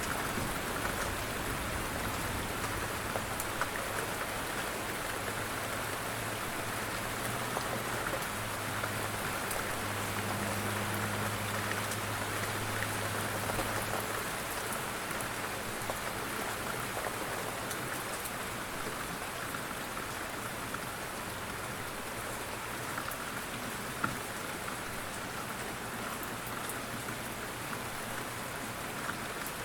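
Light rain falling steadily, an even hiss with scattered individual drops ticking on a surface.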